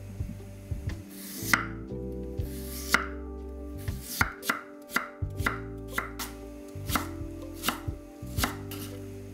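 Chef's knife slicing and dicing a peeled potato on a wooden cutting board, the blade knocking on the board stroke after stroke. The chops come fastest about halfway through, several a second.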